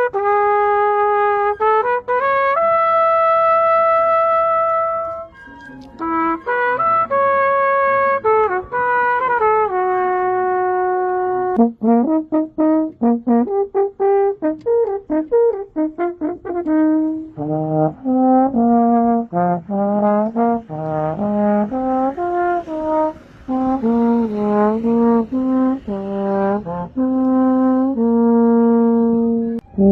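Brass instruments of a symphonic band played solo, one melodic line at a time, in short phrases of sustained and moving notes. Higher-pitched brass plays in the first half, and lower-pitched brass takes over from about halfway.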